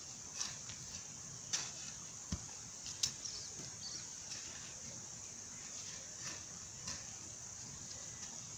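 Hoe blade striking and scraping soil in irregular strokes, drawing earth up around flattened corn plants, with one duller thump a little after two seconds.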